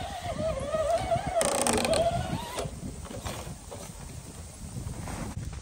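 Electric motor of a 1/10-scale Bomber RC crawler whining under load as it drives through deep snow, the pitch wavering up and down. A short burst of hiss comes about a second and a half in. The whine stops a little past halfway and gives way to faint scattered ticks and scrapes.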